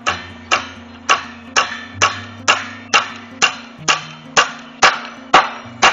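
Hammer driving a nail into a maple-branch gate header: a steady run of about two blows a second, growing louder toward the end.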